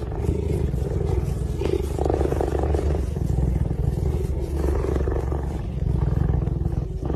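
A big cat vocalizing with a continuous low, rough rumble.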